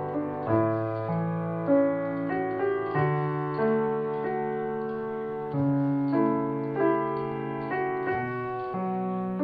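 Background piano music: chords and a simple melody, each note struck and left to ring and fade.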